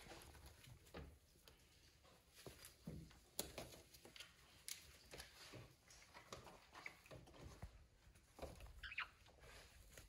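Near silence with faint, irregular clicks and scratches: parrots' beaks and claws working a hanging rope toy.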